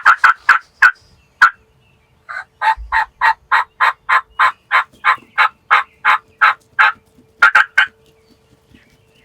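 Wild turkey yelping: a few quick, sharp notes at the start, then a long run of evenly spaced yelps, about three a second, and a last short burst of three.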